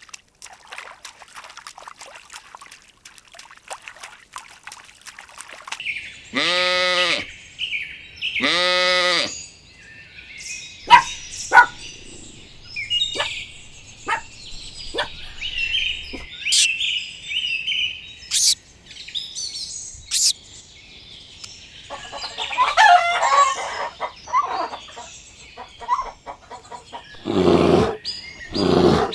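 Birds chirping and calling, with rapid high chirping at first, then two long drawn-out calls about two seconds apart, then sharp separate chirps. Deeper, louder animal calls come near the end.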